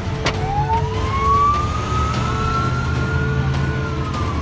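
Emergency vehicle siren in a slow wail, rising over about three seconds and starting to fall near the end, over the steady rumble of the moving car it is heard from.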